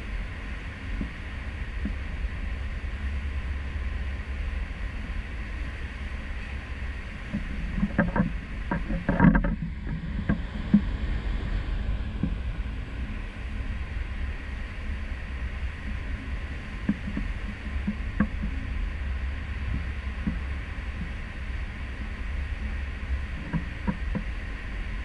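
Steady low rumble and rush of a cruise ship under way at sea, picked up by a GoPro mounted on a stern balcony post. A cluster of short knocks and clicks about eight to ten seconds in, with a few faint ticks later.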